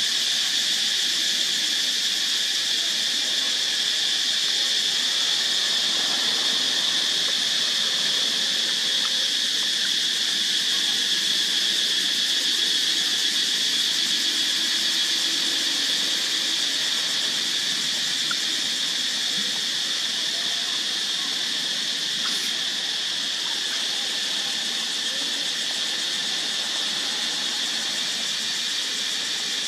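Steady, shrill drone of an insect chorus.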